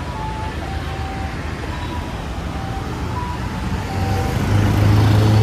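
City road traffic heard from a moving motorbike taxi. About four seconds in, a heavy vehicle's low engine hum close by grows louder.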